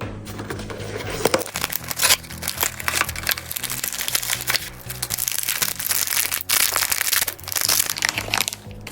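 Crinkling of a blind-box figure's plastic foil packaging being handled and opened: dense, irregular crackles that stop near the end, over background music.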